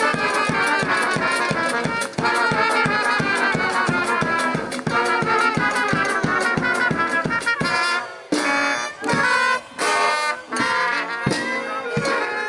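Brass band music with a steady fast beat. About eight seconds in it breaks into a few separate short chords with gaps between them.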